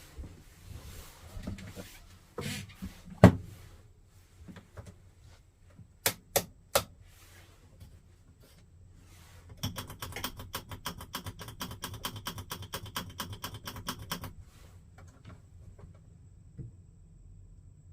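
Knocks and clicks from operating a Dometic 3-way camping fridge: one loud knock about three seconds in, three sharp clicks a few seconds later, then a fast, even run of ticks, about eight a second, lasting nearly five seconds.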